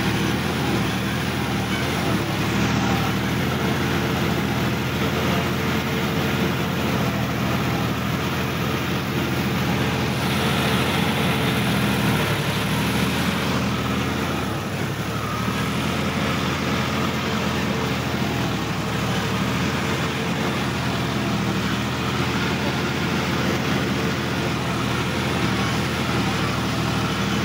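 Sonalika DI-50 RX tractor's diesel engine running steadily while the tractor drives, heard close up from the driver's seat.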